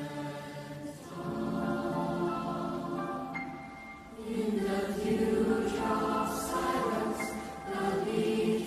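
Mixed-voice youth choir singing held chords in close harmony, swelling louder about a second in and again about four seconds in, with a few soft 's' consonants near the end.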